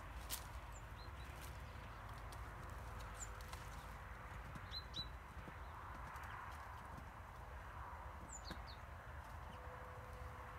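Kars shepherd dog scrabbling at the hollow base of a tree stump: faint scuffs and knocks of paws against wood and dry brush. A few short, high bird chirps come now and then.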